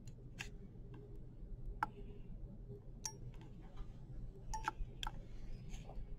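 A few faint, irregular clicks and ticks of metal surgical instruments, a needle holder and forceps, handling a running suture in a plastic heart model, over a low steady hum.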